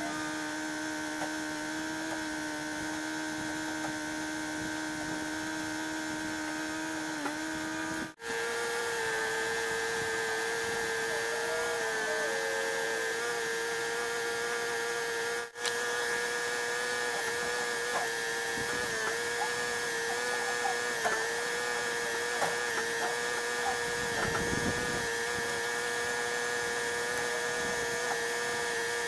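A power tool running steadily with a constant whine. Its pitch dips slightly now and then, as if under load. The sound drops out briefly about 8 seconds in and again about halfway, and runs at a higher pitch after the first break.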